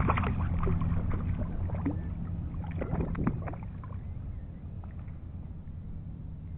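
Close water splashing and dripping as a hooked jack is handled at the surface, a run of short splashes that die away about three and a half seconds in, leaving gentle lapping over a low steady rumble.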